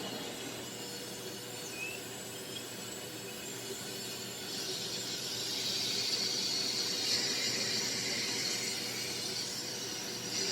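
Aspiron 1600W bagless canister vacuum cleaner running: a steady motor whine under airflow hiss, with the hiss growing louder about four and a half seconds in.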